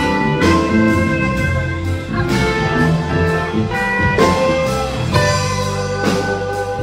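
Live band playing an instrumental passage: acoustic and electric guitars over bass and drums keeping a steady beat, with no singing.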